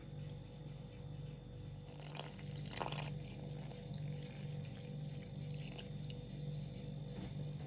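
Soft background music with a low, evenly pulsing tone, over the sound of milk being poured: short splashy pours about two to three seconds in, the loudest around three seconds, and another near six seconds.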